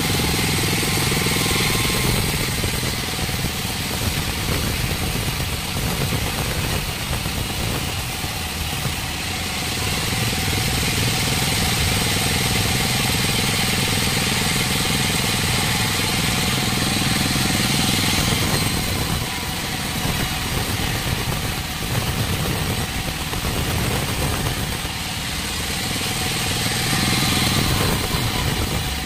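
Large vertical band saw running and ripping a squared timber beam as it is fed through: a steady machine noise with a thin high whine, swelling and easing every few seconds as the cut goes on.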